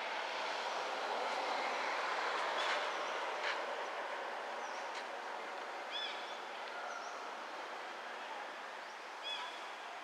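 A steady rushing background noise that swells to its loudest two to three seconds in and then slowly fades, with a few short, high bird chirps about six and nine seconds in.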